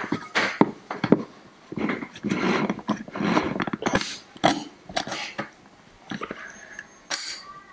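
Irregular clicks, knocks and rustling as a small padlock is worked and unhooked from the metal hasp of a wooden chest, with a furry puppet hand brushing against the lock and the wood.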